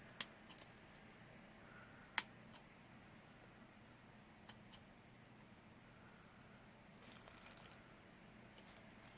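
Scissors snipping faintly: a couple of sharp clicks, one just after the start and one about two seconds in, with a few fainter ones later, against near silence.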